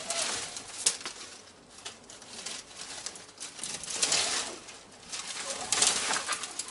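Dry twigs and brushwood rustling, scraping and snapping as bundles are shoved into a stone bread oven. This comes in bursts: at the start, about four seconds in, and again near the end.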